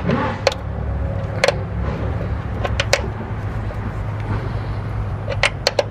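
Scattered sharp metallic clicks and clinks from hand tools and fittings being worked in a car engine bay, while the boost solenoid bracket is unbolted. There are single clicks about every second or so, and three in quick succession near the end. All of it sits over a steady low hum.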